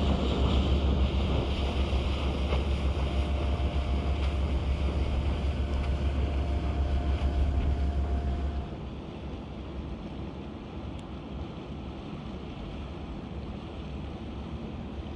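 Steady low drone of a passing river barge's engine, with a faint held tone above it. It cuts off suddenly about nine seconds in, leaving quieter wind and water noise.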